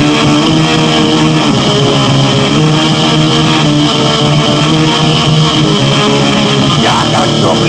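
Crossover thrash / hardcore punk band playing, led by distorted electric guitar riffing, from a late-1980s Siberian demo recording.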